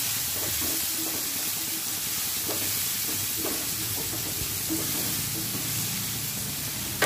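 Chopped onions frying in hot oil in a non-stick kadai: a steady sizzle, with light scraping and tapping of a wooden spatula stirring them.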